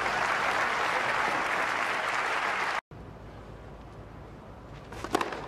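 Tennis crowd applauding after a point is won, cut off suddenly about three seconds in. Quieter crowd background follows, with a couple of sharp clicks near the end.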